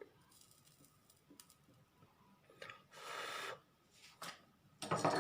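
Soldering iron tinning a flux-coated wire: a brief sizzle of burning flux about three seconds in, among faint small clicks of the wire and tools.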